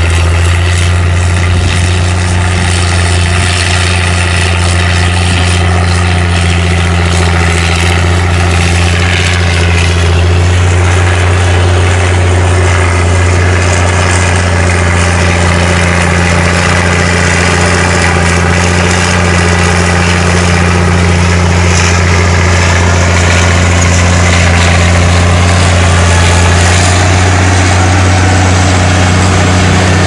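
Caterpillar D6 bulldozer's diesel engine running loud and steady while the dozer pushes dirt with its blade.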